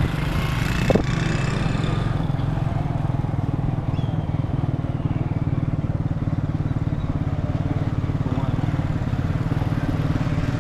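Motorcycle engine running steadily at a low, even speed, heard from the bike being ridden. There is a brief knock about a second in.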